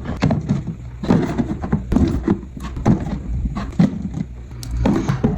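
Irregular knocks and light clatter of grocery containers and packages being handled and set down, a few sharp taps a second.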